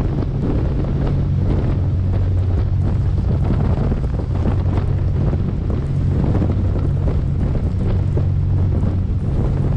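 Large powered catamaran ferry under way at speed: its engines give a steady low drone while the wake rushes along the hull and wind buffets the microphone.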